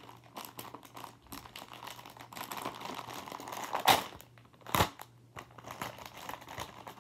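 Plastic packaging bag crinkling and rustling as hands work it open, with two louder crackles about four and five seconds in.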